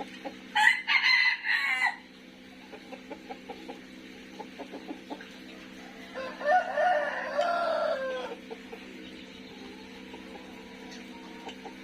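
A rooster crows twice, each crow lasting about one and a half to two seconds, with short soft clucks between.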